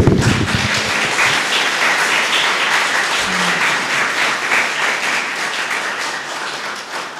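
Audience applauding: many hands clapping together, starting sharply and slowly fading toward the end.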